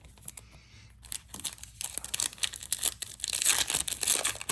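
A trading-card pack wrapper being torn open and crinkled by hand. The crackling builds and is loudest near the end.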